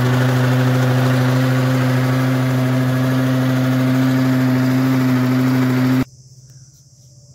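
Electric mixer-grinder motor running at a steady pitch, blending watermelon pieces and milk in its plastic jar. It stops abruptly about six seconds in.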